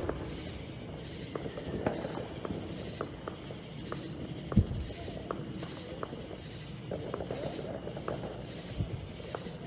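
Distant fireworks going off, a scatter of faint pops and cracks with one louder boom about halfway through. Under them runs a high, pulsing chirp repeating about twice a second.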